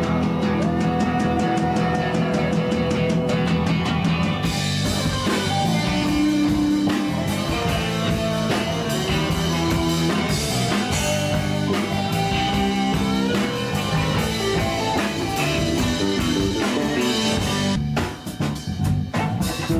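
A live rock band plays, with electric guitar, bass guitar and a drum kit with cymbals. A few seconds in, the cymbals fill out the top end. Near the end the music turns sparser and choppier, led by the bass.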